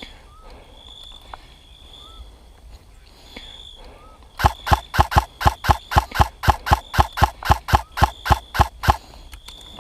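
Airsoft gun firing a quick, even string of about twenty shots, about four a second, starting a few seconds in. Faint high chirps come before it.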